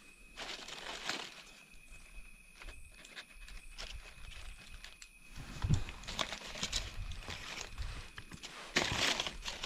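Dry leaves and kindling rustling and crackling as they are handled and set alight to start a small campfire, in irregular bursts, the loudest near the end. A faint steady high tone runs underneath.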